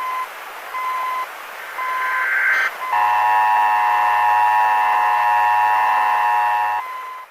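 Emergency broadcast alert tones over a steady hiss: three short single-pitch beeps about a second apart, a brief burst of static, then a steady multi-tone alert chord with a low hum underneath that cuts off near the end and gives way to a single tone.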